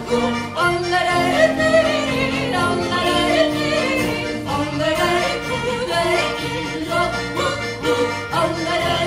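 A woman and a man yodelling in duet over a brass band playing a Bavarian polka, with a repeating low oom-pah bass under the voices.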